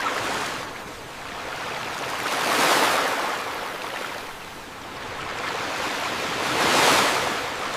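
Ocean surf: two waves rolling in and washing up, the first cresting about a third of the way in and the second near the end.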